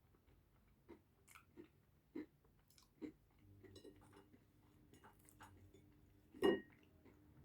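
A person chewing pizza close to the microphone: a string of short, separate mouth clicks and smacks, with one louder one about six and a half seconds in.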